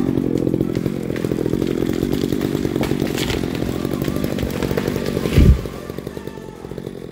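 Chainsaw idling steadily while a felled tree goes over: a few sharp cracks of breaking wood about three seconds in, then a heavy thud as the trunk hits the ground about five and a half seconds in.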